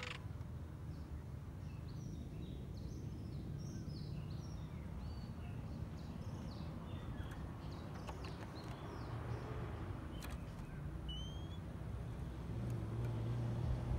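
Oriental magpie-robins calling: a run of quick, short, falling chirps, then a single rising whistled note about eleven seconds in, over a steady low rumble. A sharp click sounds about ten seconds in.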